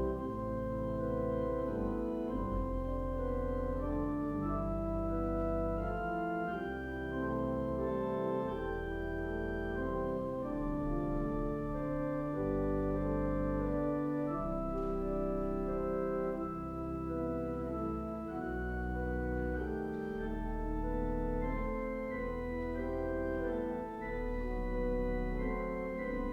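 Organ playing slow instrumental music: sustained chords that change every second or two over held low bass notes.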